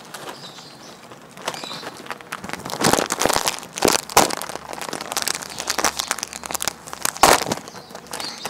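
Foil snack packets crinkling and crackling in irregular spells as they are handled and opened, loudest about three to four seconds in and again about seven seconds in.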